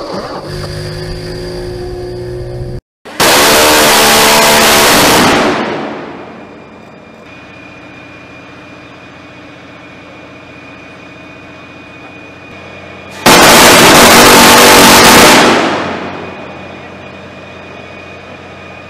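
Phalanx CIWS 20 mm six-barrel rotary gun firing two long bursts, each a steady, unbroken stream of fire lasting about two seconds. The first starts about three seconds in and the second about thirteen seconds in, and each trails off in a fading echo.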